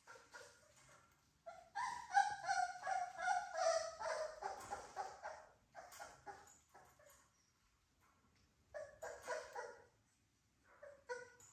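Three-week-old American Bully puppies yapping and whimpering in quick runs of short, high-pitched cries as they tussle. The longest run comes about two seconds in and lasts a few seconds, with shorter flurries later.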